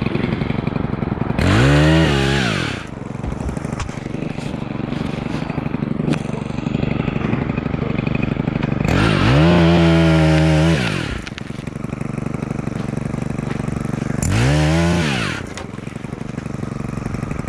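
Two-stroke gas power pruner (pole saw) running at idle and revved up three times, each rev rising and falling in pitch, as it cuts branch weight off a tree.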